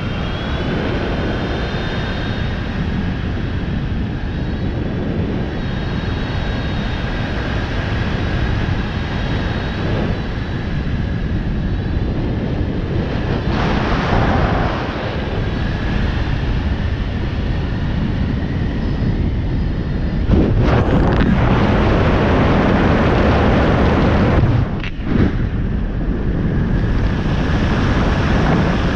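Heavy wind rushing over the microphone of a camera in flight, with a steady high-pitched whine that wavers slightly in pitch. The wind rush grows louder about two-thirds of the way in, and drops out briefly for a moment a few seconds later.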